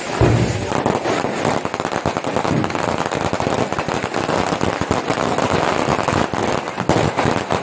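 Fireworks going off in a rapid, continuous crackle of many small bangs, like a long string of firecrackers.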